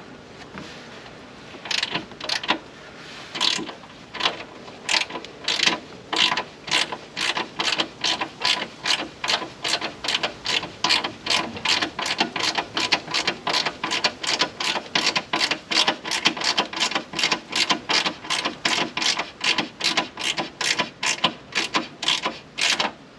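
Hand ratchet clicking in steady back-and-forth strokes, about two a second, as a bolt is driven in to hold down a carbon fiber engine bay cover.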